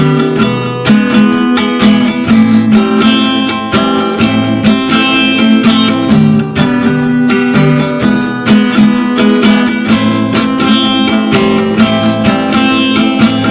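Instrumental music led by a strummed acoustic guitar, with a steady rhythm and no singing.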